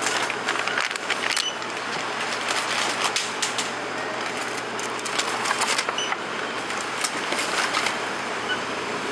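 Groceries and plastic packaging being handled at a supermarket checkout, with irregular clicks, knocks and clatter on the counter and a couple of short beeps.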